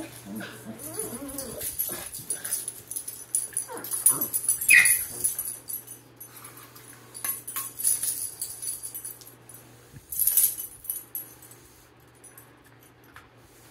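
Pet dogs at play, whining in short wavering sounds, with shuffling and rustling noises around them that fade out near the end.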